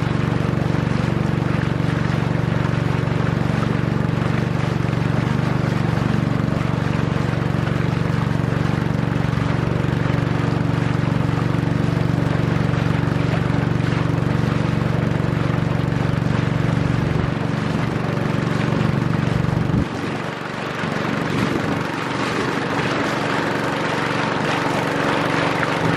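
Long-tail boat engine running steadily at speed, a deep drone under a broad hiss; about twenty seconds in the drone drops and thins briefly, then carries on.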